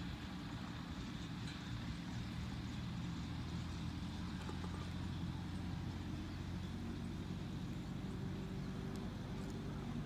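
A vehicle engine running steadily, its low hum stepping up slightly in pitch near the end.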